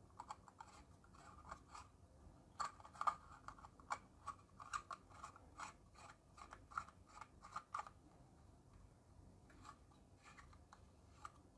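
Faint, irregular scraping clicks of an LED bulb's metal screw base being turned by hand into a lamp socket, thread rubbing on thread. The clicks come thick and fast for about eight seconds, then only a few more.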